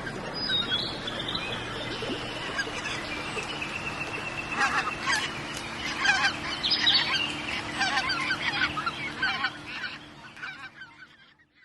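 Birds calling in a spring soundscape: a long steady note at first, then a busy run of short, repeated calls through the middle, fading out at the end.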